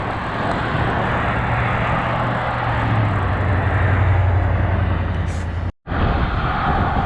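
Wind noise rushing over a bicycle-mounted microphone while riding, with a steady low hum of road traffic underneath. The sound cuts out completely for an instant near the end.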